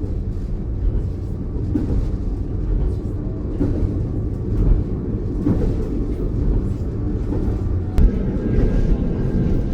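Tatra Electric Railway narrow-gauge electric multiple unit running on the line, a steady low rumble of wheels on rail heard from on board, with one sharp click about eight seconds in.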